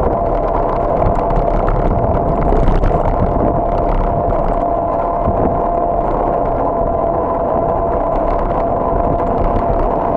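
A bike rolling along an asphalt street: a steady rumble and hiss of riding, with one constant thin whine running through it.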